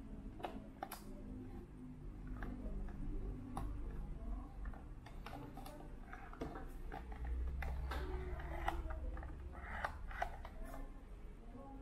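Scattered light clicks and taps of hands handling a small plastic novelty radio built like a 1982 Coca-Cola vending machine, turning it over and fingering its thin metal antenna.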